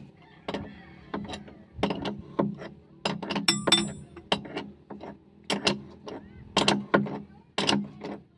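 Irregular metal clicks and knocks as an excavator bucket tooth is worked onto its adapter and pinned, over a low steady hum. A brief metallic ring sounds about three and a half seconds in.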